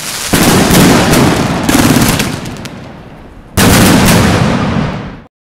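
Burn-It Massive 25-shot fireworks cake firing: a dense run of shots and crackling bursts, with fresh loud volleys about a third of a second in, near two seconds and about three and a half seconds in, cutting off suddenly near the end.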